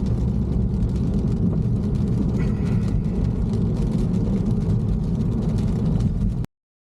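Car driving: a steady low rumble of engine and road noise. It cuts off suddenly to silence near the end.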